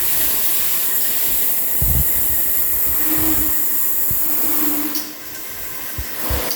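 Handheld chrome shower head spraying water on one of its spray patterns, a steady loud hiss. It drops noticeably about five seconds in, with a few low knocks from the head being handled.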